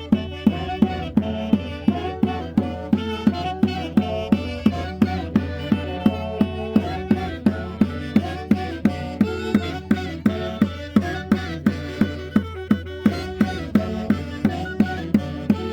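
Traditional Mantaro Valley festival music played by a band: sustained melody instruments over a steady, even beat of about three strikes a second.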